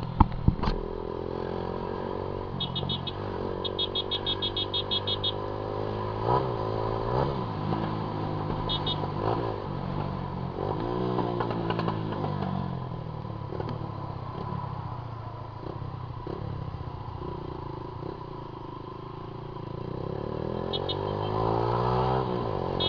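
Honda CG Titan 150's single-cylinder four-stroke engine on the move, revving up and dropping back again and again as the rider shifts through gears, its exhaust loud. A few sharp clicks come right at the start.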